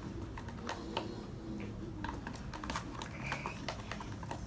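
Light, irregular clicks and taps of bottles and containers being handled while making slime.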